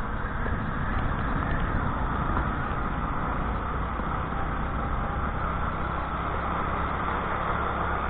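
Motor scooter riding at steady speed: wind noise rushing over the microphone, with the scooter's small engine running underneath.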